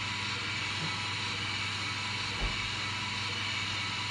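Steady mechanical running noise from the app-controlled Lego Technic Liebherr R9800 excavator as its upper body turns round, with a brief knock about two and a half seconds in.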